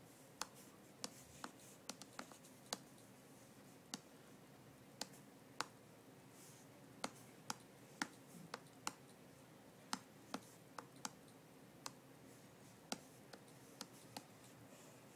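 Irregular sharp clicks, about one or two a second, of a login being typed on an Android tablet's on-screen keyboard.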